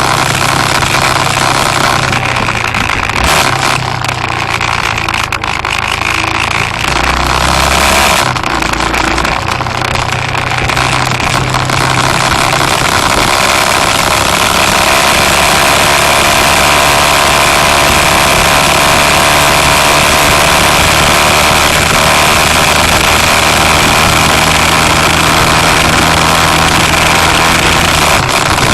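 A road vehicle's engine running while under way, with dense road and wind noise. The engine note shifts pitch several times in the first ten seconds or so, then holds steady.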